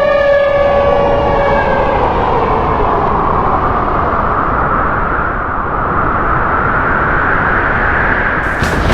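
Loud rushing roar of tornado wind that slowly rises in pitch. A held siren tone fades out under it in the first two seconds.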